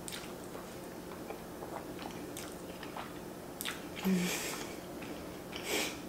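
Wet chewing and mouth sounds of someone eating saucy fettuccine alfredo, with small lip and tongue clicks throughout. Two louder slurping smacks stand out, one about four seconds in with a short low hum and another near the end.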